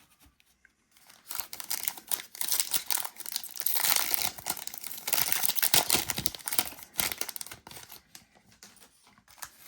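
Foil wrapper of a football trading-card pack being torn open and crinkled. A dense crackling starts about a second in, is loudest in the middle and dies away near the end.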